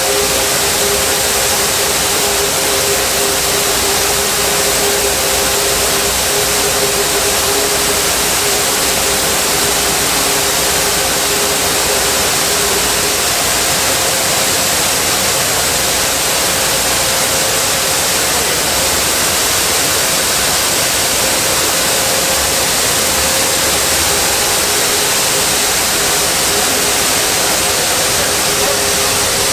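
Soybeans pouring out of a grain truck's raised box into an elevator dump pit: a steady rushing hiss, with a steady machine whine over it that drops out for a while in the middle.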